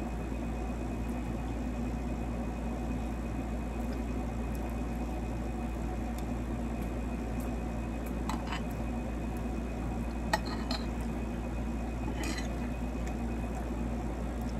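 A metal spoon clinking and scraping against a ceramic plate while scooping food, three short clicks in the second half, over a steady low background hum.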